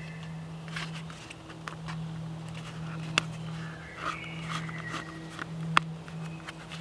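Split spruce root cord being drawn through punched holes in a birch bark container: scratchy rubbing and squeaks of root against bark, with two sharp clicks about three and six seconds in.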